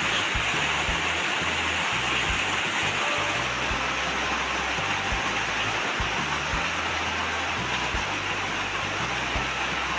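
Heavy rain pouring down, a steady hiss with a low rumble underneath.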